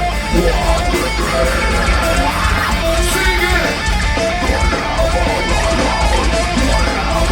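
Heavy metal band playing live: distorted electric guitars over bass and drums, a dense and steady wall of sound.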